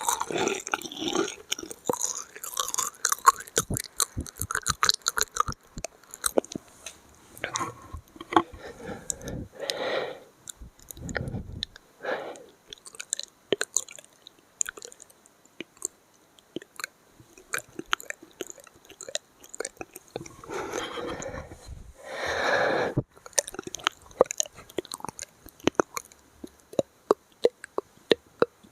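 Close-miked ASMR mouth sounds: a steady run of wet clicks and smacks with chewing-like crunches, densest at the start, broken a few times by short breathy, whisper-like stretches.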